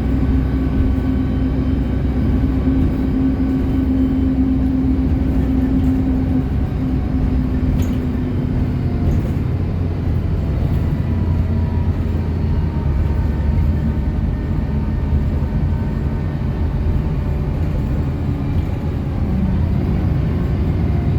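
City bus driving along: a steady low engine drone and road rumble, whose note shifts about a third of the way through as the higher engine tone fades and the lower hum grows.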